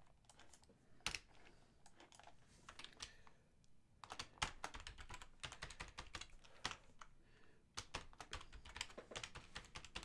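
Faint computer-keyboard typing: quick runs of key clicks, with a short pause about three seconds in and a denser run after it.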